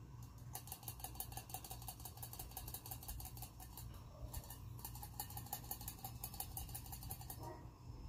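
Thin vinegar-based taco sauce pouring out of a bottle, a fast run of gurgling glugs that stops briefly a little past the middle and then goes on, over a steady low rumble.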